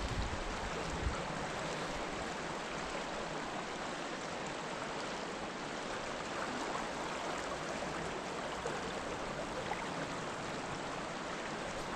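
Creek water running over a shallow rocky riffle, a steady rush of moving water close to the microphone.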